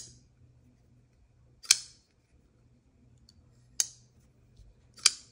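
Oz Machine Company Roosevelt all-titanium folding knife flicked open and snapped shut: four sharp metallic clicks, roughly one and a half to two seconds apart. The knife is new and its action is not yet broken in, so it is not as snappy as it will get.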